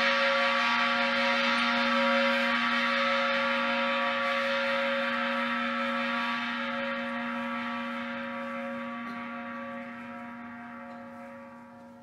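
Large temple bell ringing on after a strike: a deep tone with several higher overtones, holding, then slowly dying away over the second half and stopping near the end. The bell is rung to mark the start of the Buddhist service.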